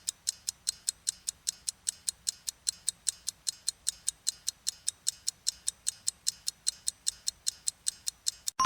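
Countdown timer sound effect ticking like a clock, about five ticks a second, ending at the very end in a bell-like ding as time runs out.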